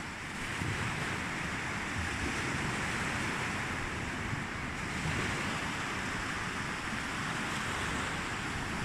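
Sea surf washing in, swelling and easing slowly, with wind rumbling on the microphone.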